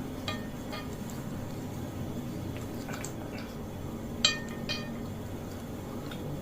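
Cutlery clinking against tableware while eating: several light clinks with a short ring, two near the start and a louder pair about four seconds in.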